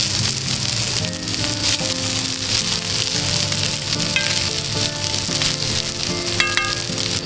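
Food sizzling as it cooks over a campfire: a steady sizzle full of fine crackles.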